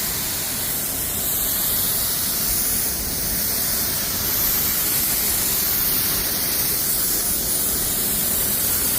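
Epoxy primer being sprayed onto a car body panel: a steady, continuous hiss of spray at low pressure.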